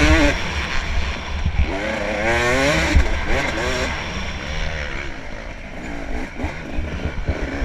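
Dirt bike engine revving hard under acceleration, its pitch climbing near the start and again about two to three seconds in, then running lower and more unevenly from about four seconds in.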